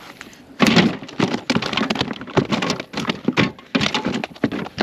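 Bass thrashing in the kayak, a rapid, irregular run of thumps and splashes starting about half a second in.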